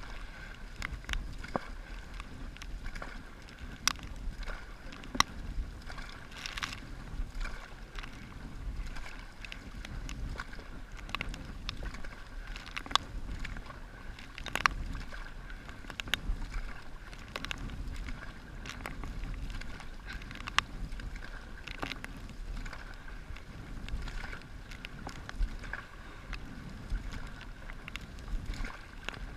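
Dragon boat on the water under paddle: steady splashing and water noise, broken by irregular sharp knocks and splashes from the paddles.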